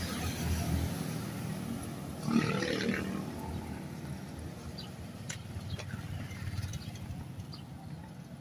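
Road traffic passing on a multi-lane highway: vehicle engines running, with one louder engine passing about two seconds in, then fading.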